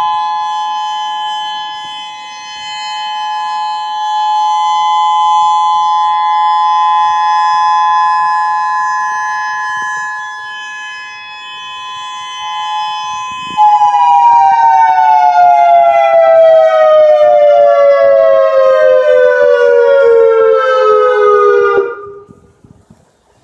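Civil defense tsunami warning siren sounding a steady two-tone chord that swells and fades in loudness. About fourteen seconds in it turns suddenly louder and its pitch falls steadily for about eight seconds as the siren winds down, then it stops abruptly near the end.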